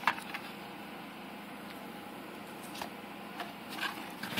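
Cardboard phone-box packaging being handled: a light tap right at the start, then a few faint ticks and rustles over a low steady hiss.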